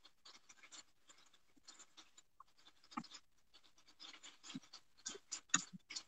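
Faint, irregular crackling and clicking from a pan of chicken cooking on high heat for chicken karahi, with a few louder clicks about three seconds in and near the end.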